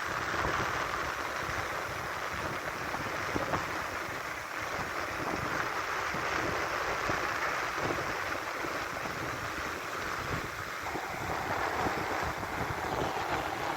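Strong wind buffeting the microphone in irregular gusts, over a steady hiss of surf breaking on the beach.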